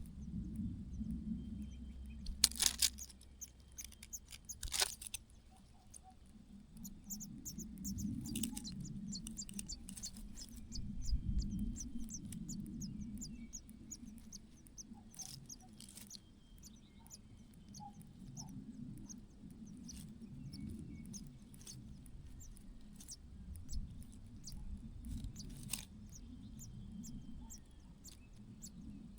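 Many short, thin, high-pitched bird chirps in quick series, with a few sharp knocks and low handling rustle underneath.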